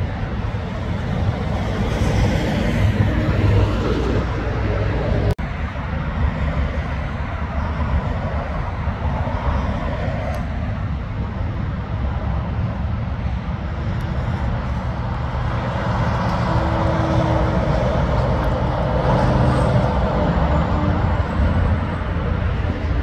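Highway traffic: tyre and engine noise from passing vehicles. A heavy truck's engine drone builds up in the second half as it approaches and passes. There is a brief click and break at about five seconds.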